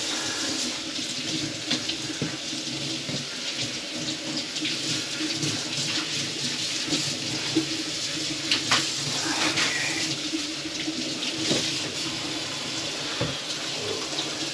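Kitchen faucet running water steadily into the sink, with a few light clinks. The sink's grease-clogged drain line has just been cleared.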